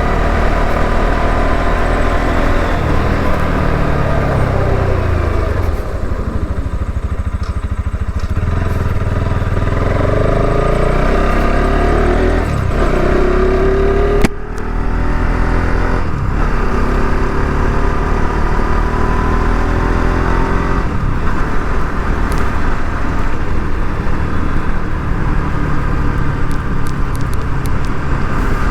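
Bajaj Pulsar RS 200's single-cylinder engine running under way: the revs drop off a few seconds in, pick up again with a rising pitch, and after a sharp click about halfway through it settles to a steady cruise.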